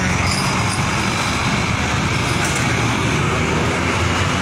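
Steady road traffic noise with a heavy vehicle's engine running close by, a constant low rumble under the hiss of traffic.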